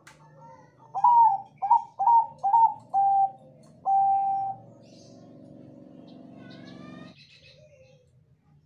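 Zebra dove (perkutut Bangkok, a contest-bred song line) cooing: about five short, clipped coos in quick succession, then one longer held note. A faint steady hum follows for a few seconds, with a few high rising chirps just before it stops.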